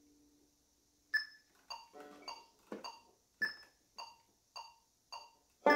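Metronome clicking a steady beat, a little under two clicks a second, with every fourth click accented at a higher pitch. A banjo chord is pinched right at the very end.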